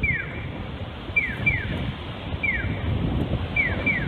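Japanese-style accessible pedestrian crossing signal giving its electronic 'piyo' chirps: short high chirps sliding down in pitch, alternating a single chirp and a pair at a strictly regular pace, about every 1.2 s. Low rumbling noise runs underneath.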